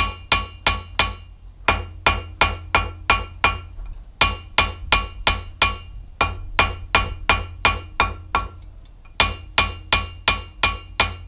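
Hand hammer striking a hot steel tong jaw on an anvil, about three blows a second in runs with short pauses, each blow ringing with a bright metallic tone. This is the forging of the jaw, breaking in its corners.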